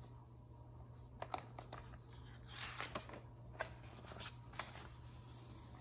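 A page of a picture book being turned: soft paper rustling and a few light clicks, over a faint steady low hum.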